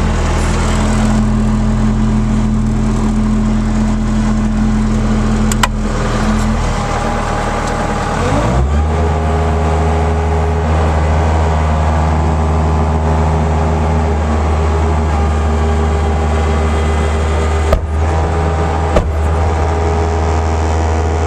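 Bobcat S130 skid steer's 46 hp Kubota diesel idling steadily. About eight seconds in, the throttle comes up and it runs at a higher, steady speed, dropping back just at the end. A few short clicks along the way.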